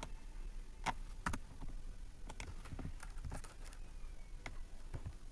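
Computer keyboard keystrokes, typed slowly and unevenly: a dozen or so separate clicks with pauses between them as a line of CSS is entered.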